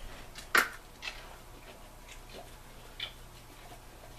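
Light clicks and taps of a spice container and measuring spoon as a teaspoon of pepper is measured into a saucepan: one sharp click about half a second in, then a few fainter ticks.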